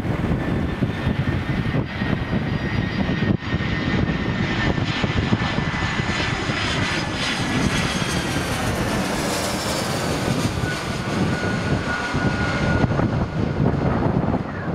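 An airliner passing low overhead on landing approach: its engine noise builds to a peak about nine to ten seconds in, with a whine that falls in pitch as it goes by. Strong wind buffets the microphone throughout.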